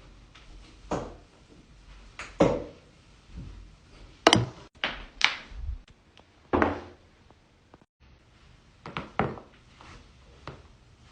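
Joints cracking during chiropractic adjustments: a series of sharp pops and knocks, some coming in quick pairs or triplets, with a steady quiet background between them.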